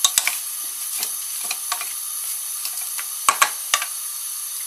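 Wooden spoon stirring chunks of pumpkin and onion in a stainless steel saucepan, knocking against the pot twice right at the start and three times about three and a half seconds in, over a steady hiss.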